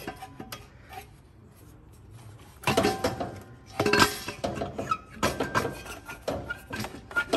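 Cast-iron exhaust manifold clanking and clinking against the engine and its brackets as it is worked free of its studs by hand. The first couple of seconds are quieter, then come a run of sharp metal knocks, some ringing briefly.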